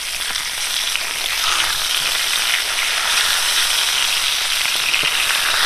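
Whole fish coated in salt and turmeric sizzling steadily as they shallow-fry in hot oil in a black iron pan, while a metal spatula turns them over.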